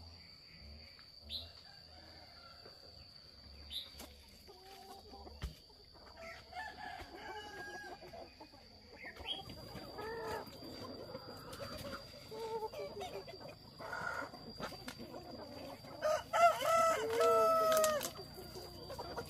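Free-range chickens clucking, with a rooster crowing loudly near the end.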